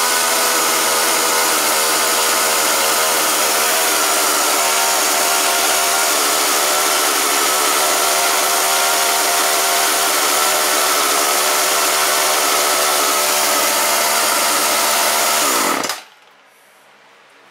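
Husqvarna 137/141 chainsaw's two-stroke engine running fast and steady instead of dropping back to idle, a sign that the idle speed is set too high after the carburetor refit. About 16 s in it is shut off and winds down quickly.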